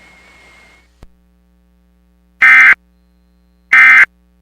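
Emergency Alert System end-of-message (EOM) data bursts: two short, loud, buzzy digital bursts a little over a second apart, the SAME code tones that signal the end of the alert message. Before them a faint hiss with a thin high tone stops just under a second in, followed by a click.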